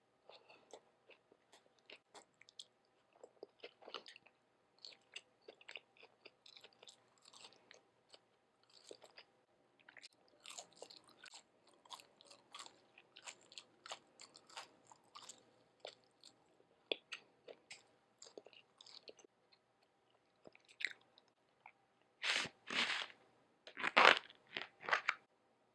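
Close-miked chewing with many small wet mouth clicks, then three or four louder crunches near the end as crunchy food is bitten and chewed.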